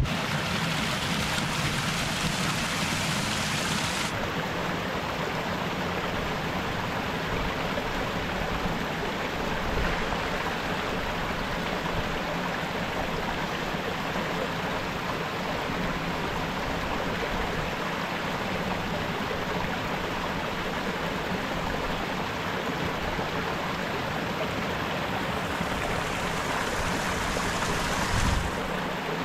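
A stream's water rushing steadily.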